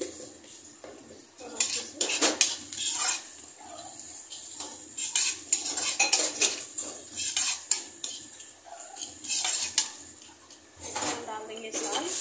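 Steel spatula scraping and clinking against a metal kadhai, stirring frying onions and chillies in irregular clusters of strokes.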